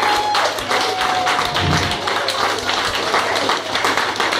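Thick, irregular clapping and feet tapping on the floor, with a thin steady note held for about a second, twice, in the first half.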